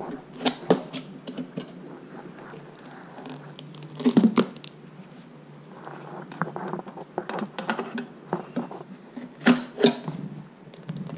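Steel tire irons levering the last of a knobby dirt-bike tire's bead over a spoked wheel rim in small bites: irregular clicks and knocks of metal on the rim with rubber scraping, loudest about four seconds in and again near the end.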